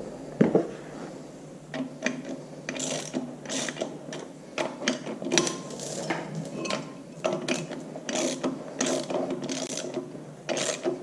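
Ratchet wrench clicking in repeated strokes as the flywheel bolts are run down, drawing the flywheel onto the crankshaft.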